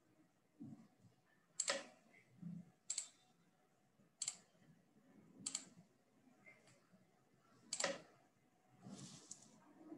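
Faint, sporadic computer mouse clicks, about half a dozen, each short and sharp, spaced a second or more apart.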